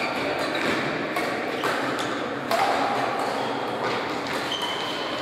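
Badminton rally: several sharp racket-on-shuttlecock hits and quick footsteps, with brief high squeaks of sports shoes on the court floor, echoing in a large gym hall.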